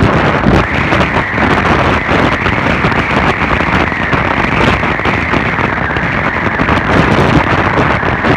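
Loud, steady wind rush buffeting the microphone of a moving vehicle, with its engine and road noise underneath.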